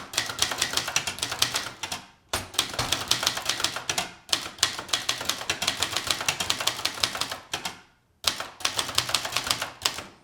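Keys of a 1977 Brother Deluxe 220 typewriter striking in rapid runs as a phrase is typed, pausing briefly twice.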